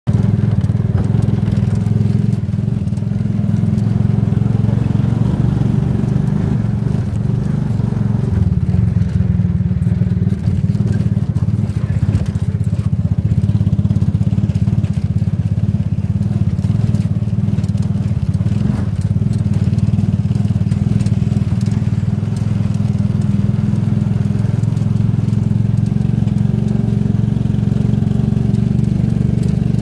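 Motor vehicle running steadily while travelling along a road: a loud, unbroken low engine drone with road noise.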